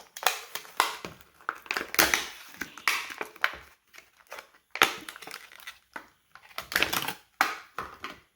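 Stiff plastic blister packaging of a padlock being wrenched and torn open, crackling and crunching in irregular bursts.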